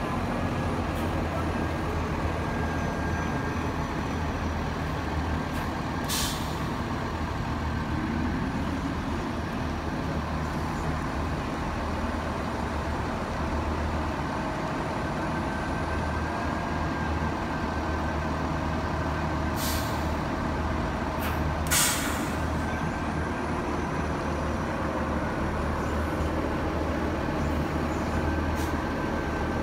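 New Flyer diesel-electric hybrid transit buses running at low speed in a bus bay, a steady low engine drone throughout. Short air-brake hisses come at about 6 s and 20 s, and a louder one at about 22 s.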